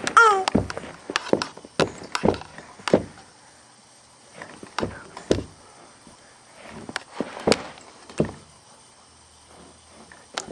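A baby's short high-pitched vocal sound right at the start, then irregular knocks and thumps close to the microphone as the crawling baby bumps and paws at the camera.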